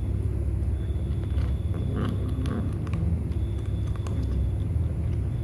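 A cat crunching dry kibble: a handful of short, sharp crunches over a steady low rumble.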